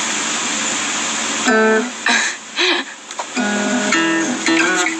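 Acoustic guitar being played: a noisy strum first, then a few short held notes.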